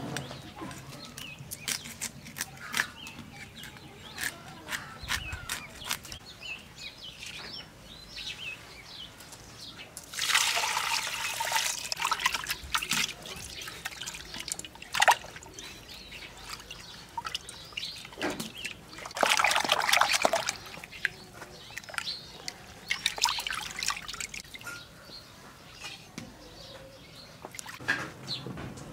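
Water sloshing and pouring as hands wash pieces of catfish head in a clay pot, with two louder splashing spells about ten and nineteen seconds in, amid scattered small clicks and knocks.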